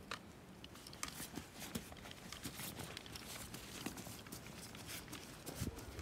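Faint light footsteps and rustling of a small child walking over soil and grass, with scattered short clicks and a soft low thump near the end.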